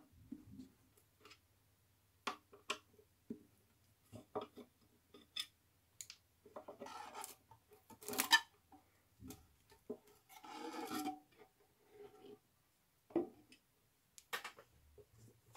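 Hand work on a loudspeaker cabinet: a screwdriver undoing small screws on the front baffle with scattered light clicks, and a few short scraping rubs as the plastic bass reflex port is worked loose.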